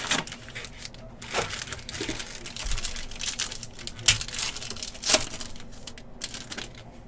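Plastic wrapper of a Panini Origins football card pack being torn open and crinkled by hand. There are two sharper, louder crackles about four and five seconds in.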